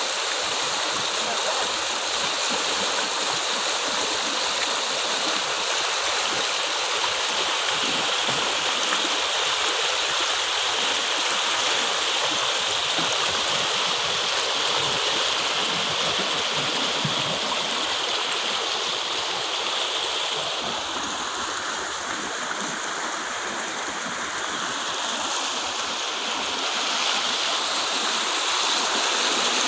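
Swollen rainwater stream rushing and churning as white water past bamboo poles. A steady rush that eases a little about two-thirds of the way through, then builds again near the end.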